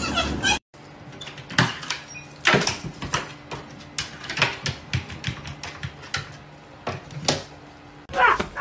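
A series of irregular, sharp knocks and clicks over a faint steady hum.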